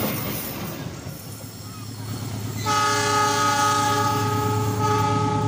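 The rumble of a passing passenger train fades away at the start. Then comes the low steady drone of an approaching diesel locomotive, and a little before halfway its horn sounds one long blast of several tones at once, held about three seconds.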